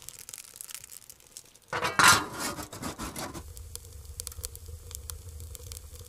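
Scattered crackling clicks from wood burning in a tent stove. About two seconds in, a loud rustle of fabric lasts over a second, followed by a low rumble.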